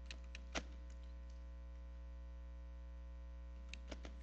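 A few faint computer keyboard keystrokes, about four in the first second and three more near the end, over a steady low electrical hum.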